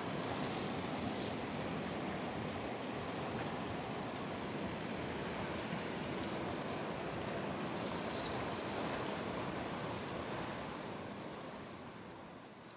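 Steady rushing of a fast river, an even noise with no pauses, fading out near the end.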